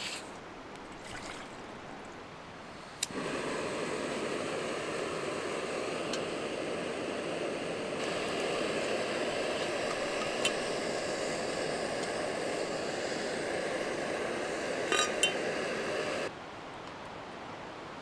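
Water poured steadily into the metal base of a stainless steel moka pot for about thirteen seconds, starting and stopping abruptly, with a couple of light metal clinks during the pour. A short hiss sounds right at the start.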